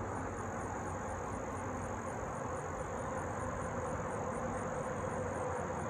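Quiet outdoor background with a steady, high-pitched drone of insects and a faint steady low hum underneath.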